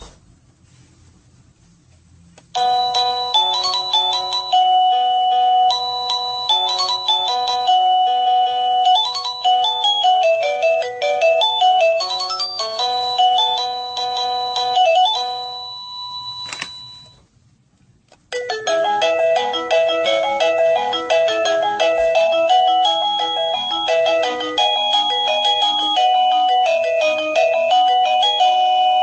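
Sadotech Model C wireless doorbell chime playing its electronic melodies, a tune of steady beeping notes stepping up and down. After a short quiet start, one tune plays for about thirteen seconds, a single click follows, and then a second tune begins.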